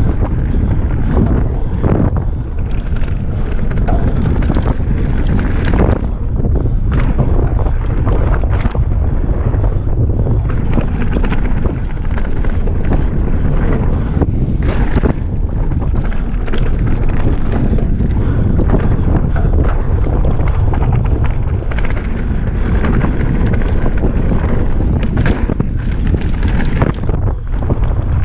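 Wind rushing over the microphone as a downhill mountain bike rides fast down a dirt trail, with a steady low rumble and frequent short knocks and rattles from the bike going over bumps.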